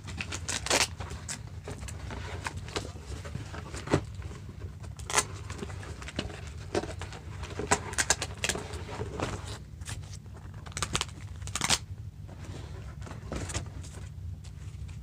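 Packaging being handled and opened by hand: irregular crinkles, rustles and sharp taps, over a steady low hum.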